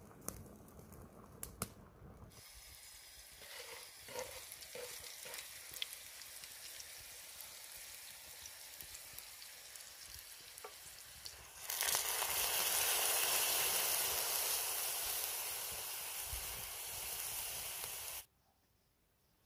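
Food frying in a cast-iron skillet: a steady sizzle that turns much louder about twelve seconds in, then cuts off suddenly near the end. A few light clicks come first.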